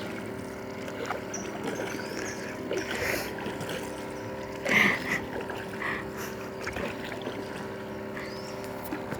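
A steady motor hum with a few light knocks and splashes over it; the loudest is a short splash-like burst about five seconds in.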